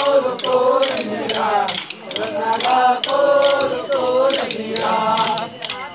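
Kolata stick dance: short wooden sticks clacking together in a steady rhythm while a group of voices sings a chant-like song over them.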